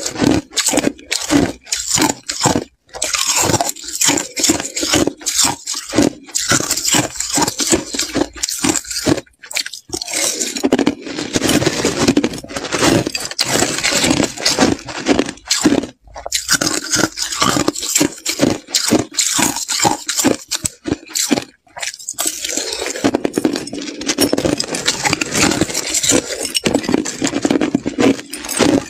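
Slushy ice being chewed and crunched close to a clip-on microphone, in quick dense runs with brief pauses, along with a metal spoon scraping and scooping through the slush in the tub.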